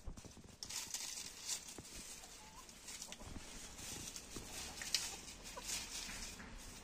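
Lohmann Brown hens rustling and scratching through shrubs and leaf litter, with a few short soft clucks and scattered sharp clicks, the loudest about five seconds in.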